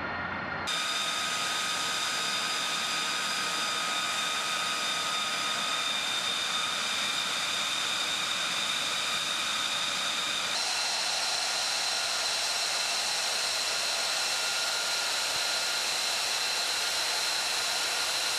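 F-35B jet engine running with a steady high whine over a hiss and little low rumble. The sound shifts abruptly about a second in and again about ten seconds in, each time with its whine settling at a new pitch.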